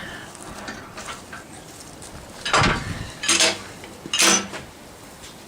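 Three short clattering knocks, under a second apart, over a steady fainter background noise.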